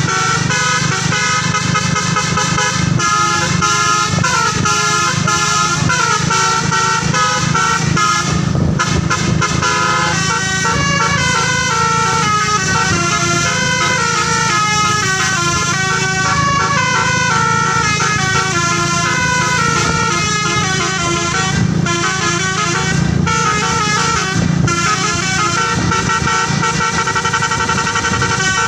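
Bus 'telolet' multi-tone air horn playing a fast melody, its notes changing several times a second, over the steady low hum of the bus engine.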